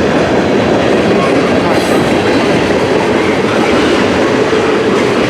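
Freight train rolling past close by, its wheels running over the rails with a steady, loud rumble and rattle.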